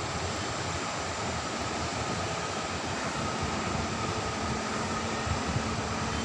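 Steady beach ambience: a constant, even rushing of sea and wind with no distinct wave breaks, and a faint steady hum underneath that grows a little more noticeable about halfway through.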